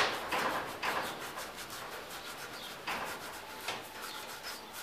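Emery cloth rubbing around the copper commutator of a car starter motor's armature, a few short scraping strokes, the first the sharpest. It is cleaning off the blackened tracks where the carbon brushes run.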